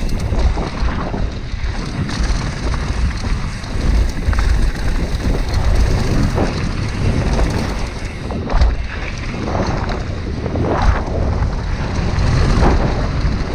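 Mountain bike descending a rocky, gravelly dirt trail at speed: wind buffeting the camera microphone with a steady low rumble, over the crunch of tyres and the rattle of the bike on rough ground, with several sharper knocks in the second half.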